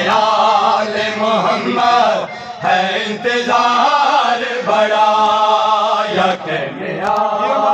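Men's voices chanting a noha, a Shia mourning lament, in long drawn-out sung lines with brief breaks between phrases.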